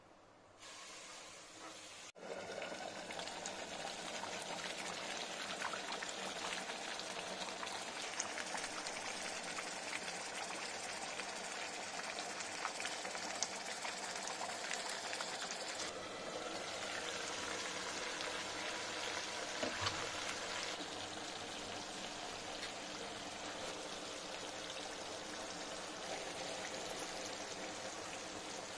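Chicken pepper curry simmering in a kadai, its gravy bubbling and spitting: a steady hiss dotted with small pops and crackles as the sauce cooks down. The sound comes up about two seconds in.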